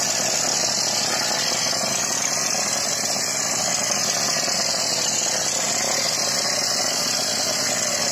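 A plaster spray gun fed by a PFT G4 plastering machine blasting render onto a wall, a steady loud hiss of compressed air with machinery running underneath.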